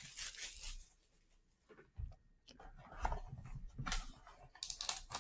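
A trading card box being opened by hand: short scrapes, taps and rustles of cardboard and wrapping, with a brief pause about a second in.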